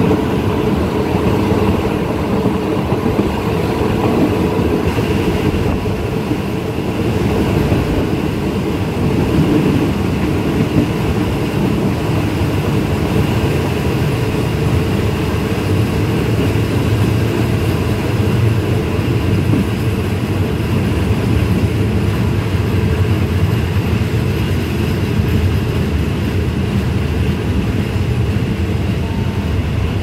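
Passenger train running, heard from inside a carriage with open windows: a steady rumble of the wheels on the rails and the carriage in motion.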